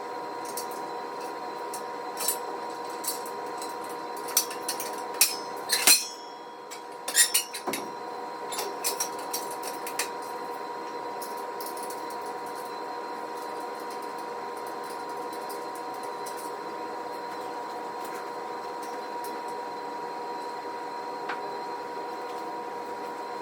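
Metal parts and hardware of a squat rack clinking and knocking during assembly, a scattered run of sharp clinks over the first ten seconds, loudest around six and seven seconds in. After that only a steady hum remains.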